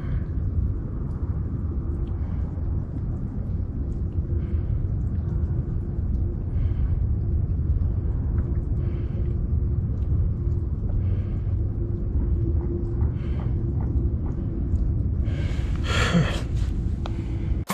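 Steady low rumble of wind buffeting the microphone, with a faint steady hum under it. There is a louder rustling stretch a couple of seconds before the end.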